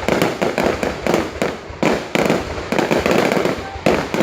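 Fireworks display: many shells bursting in quick succession, a continuous run of sharp bangs and booms.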